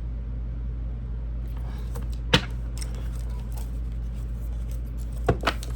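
A steady low hum with a sharp tap about two seconds in and two quick taps near the end.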